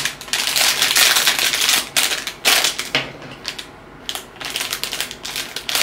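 Foil blind-box bag crinkling as it is handled and cut open with scissors, in several spells of rustling.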